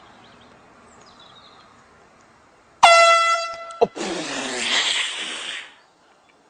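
A handheld air horn gives one loud, steady blast about a second long, starting about three seconds in. A sharp crack follows as it stops, then a loud cry lasting nearly two seconds.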